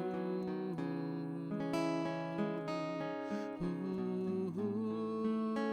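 A band playing the instrumental opening of a song just after the count-in, with an acoustic guitar strumming under sustained melodic notes that change every half second or so.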